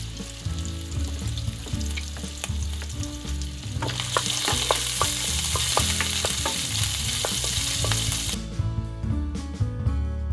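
Chopped shrimp sizzling in hot oil in a nonstick frying pan, stirred with a wooden spoon that clicks against the pan. The sizzle grows louder about four seconds in and cuts off suddenly near the end.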